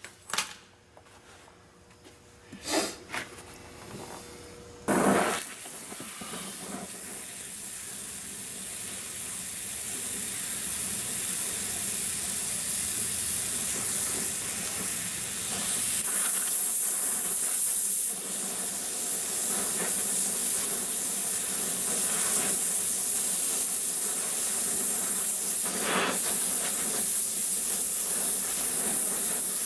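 A sharp pop about five seconds in, after a few light knocks, then the steady hiss of a gas torch flame, growing gradually louder. The torch is heating a cast exhaust manifold to free broken-off stainless bolts seized in its threads.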